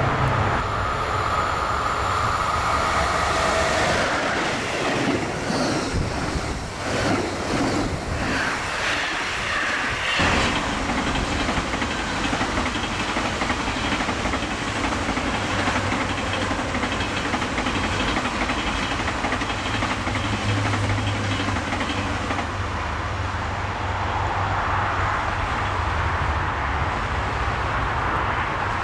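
Electric passenger trains passing close by. Wheels clatter over rail joints in a regular clickety-clack for several seconds, then give way to a steady rolling rumble as a double ICN tilting trainset runs past.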